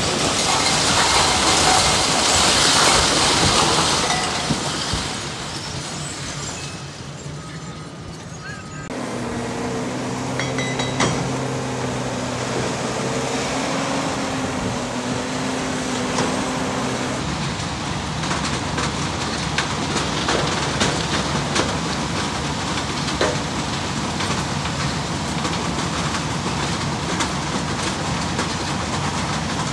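Masonry crashing and rumbling down as a high-reach demolition excavator pulls a brick wall off a multi-storey building. This is followed by the steady running of a diesel hydraulic excavator's engine, and then the continuous din of heavy site machinery working a rubble stockpile, with scattered clanks.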